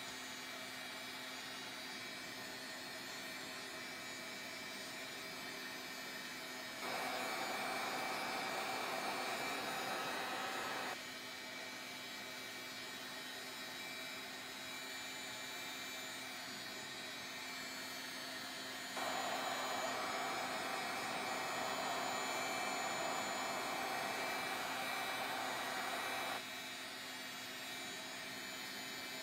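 Craft heat gun blowing steadily, drying the wet stain layer on a paper playing card. It gets louder twice for a few seconds, about seven seconds in and again from about nineteen to twenty-six seconds in.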